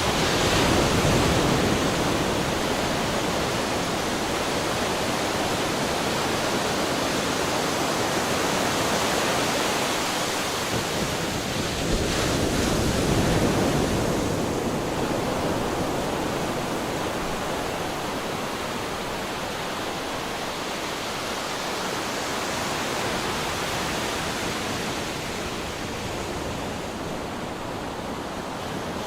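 Sea waves breaking and washing on a shore, a steady rushing surf that swells about twelve seconds in and slowly eases off toward the end.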